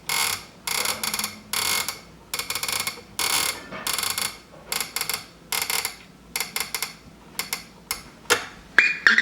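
Panasonic RC-6040 flip clock radio's alarm buzzer going off in a steady run of harsh, terrible-sounding buzzing pulses, a little over one a second. Near the end the pulses turn shorter and quicker. The owner takes this grating buzz to be the normal sound of this alarm, not a fault.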